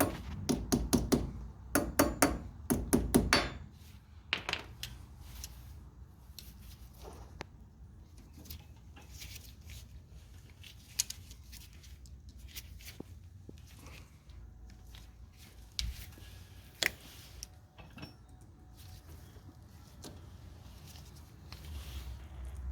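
Metal hand-tool clinks and taps while a cotter pin is fitted through the castellated nut on the axle stud: a quick run of sharp metallic clicks in the first few seconds, then scattered light ticks and knocks.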